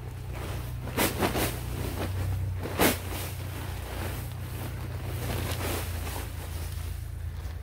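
Paper leaf bags crinkling and dry leaves rustling as bags are emptied onto a leaf pile, with a cluster of sharp rustles about a second in and a louder one near three seconds. A steady low wind rumble on the microphone runs underneath.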